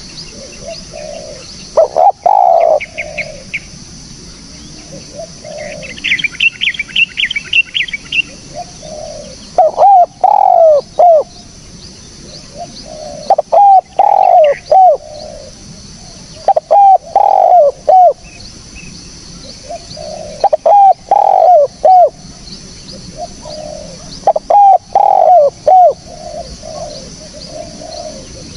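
Spotted dove (tekukur) cooing: loud phrases of several falling coos, repeated every three to four seconds. Another small bird chirps briefly in the first third, over a steady high hiss.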